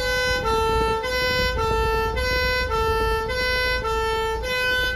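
Fire truck's two-tone horn sounding a hi-lo pattern, alternating between a higher and a slightly lower note about every half second. It cuts off suddenly at the end.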